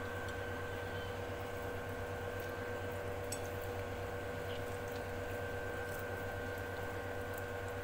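A steady background hum holding a few fixed tones, with a few faint small ticks.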